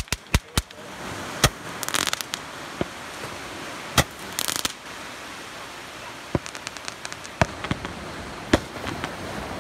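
Handheld Roman candle firing: a string of sharp pops, with bursts of crackling about two seconds in and again around four and a half seconds, then a run of smaller cracks.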